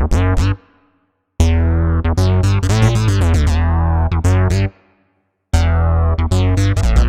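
Electronic intro music: synthesizer keyboard with heavy bass, stopping dead twice and starting again.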